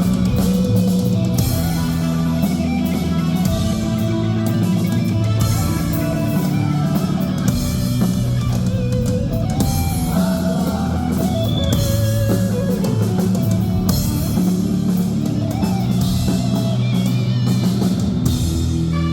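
Rock band playing live: electric guitar and bass over a drum kit with steady cymbal hits.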